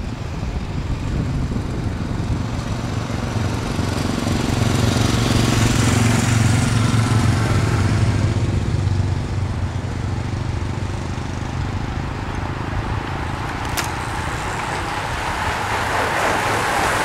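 Escort motorcycle engines running as they pass close, loudest in the middle, then a rushing noise of tyres and wind that builds as the pack of racing bicycles rolls by.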